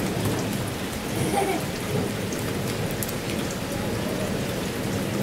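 Steady rain falling and pattering on the ground.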